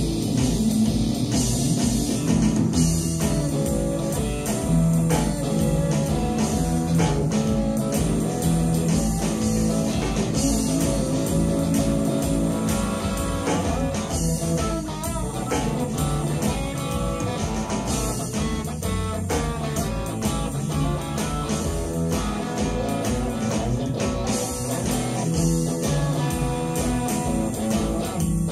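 A band playing a blues: electric guitar over bass guitar and a drum kit keeping a steady beat.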